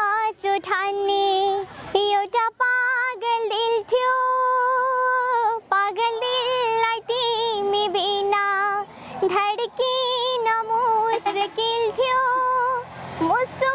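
A young girl singing solo and unaccompanied in a clear, high voice, with vibrato on the held notes and short pauses for breath.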